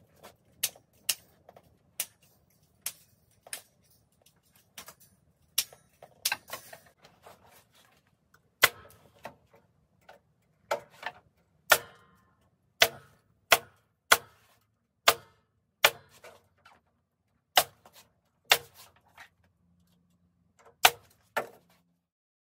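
A staple gun fastening a metal wire grid to a wooden frame, firing sharp single snaps at an uneven pace of about one a second, with a short pause near the end.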